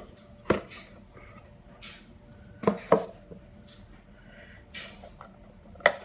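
A cardboard subscription box and its packaging being opened and handled by hand: a few sharp clicks and knocks, two in quick succession, with short rustles between them.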